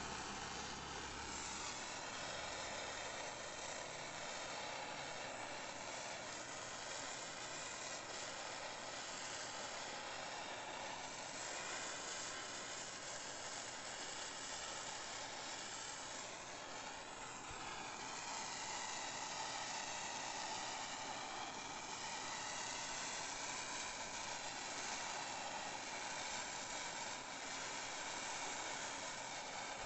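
Handheld gas blowtorch burning with a steady hiss as its flame chars the live edge of a wooden slab.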